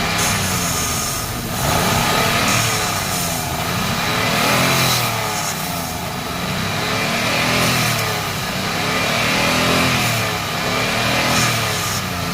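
Hyundai Eon's small three-cylinder petrol engine running and being revved up and let fall back again several times, during a throttle body cleaning.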